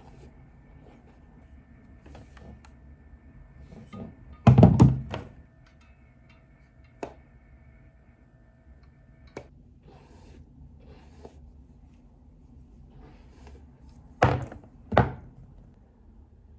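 Household thuds and knocks: a cluster of loud thunks about four and a half seconds in, a few light clicks, and two more sharp thunks near the end.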